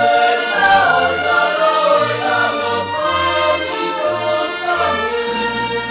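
Music: a choir singing with instrumental accompaniment over a bass line.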